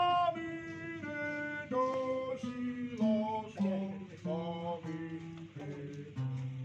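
Acoustic guitar playing a slow descending run of single notes, about a dozen, each held briefly and stepping lower in pitch.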